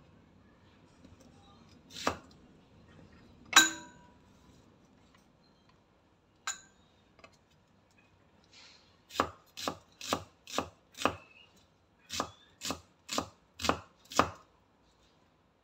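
Kitchen knife with a broad blade chopping onion on a round wooden chopping board: a few single strikes, the loudest about three and a half seconds in, then two quick runs of five chops each, about two a second.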